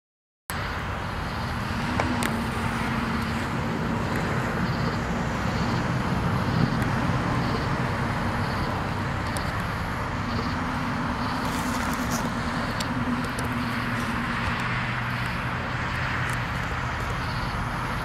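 Steady background rumble and hiss of distant road traffic, with a low engine drone that swells and fades twice. The sound drops out for half a second at the very start.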